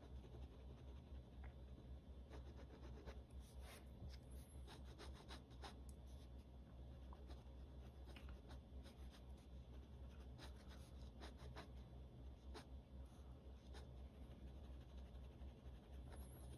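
Faint, irregular scratching of a pen hatching strokes on sketchbook paper, over a low steady hum.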